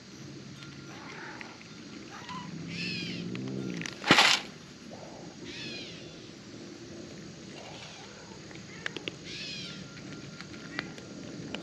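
Animal calls: short repeated calls with curving pitch, a few seconds apart, with a brief loud burst of noise about four seconds in.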